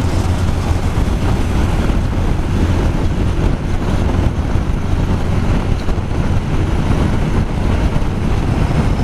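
Motorcycle riding at about 60 km/h: steady engine drone and road noise, with wind rushing over a helmet-mounted microphone.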